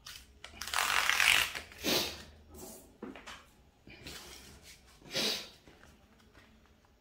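Red paper mailer envelope being torn open by hand along its tear strip: tearing and crinkling paper in several short bursts, the longest and loudest about a second in.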